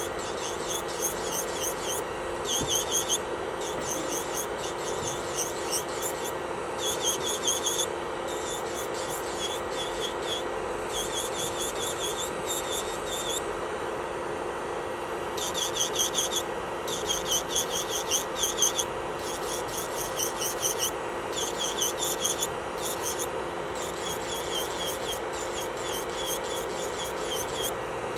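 Electric nail drill (e-file) running with a steady whine. Its bit grinds against the nail in repeated short bursts of high, scratchy rasping with brief pauses between, filing off old gel.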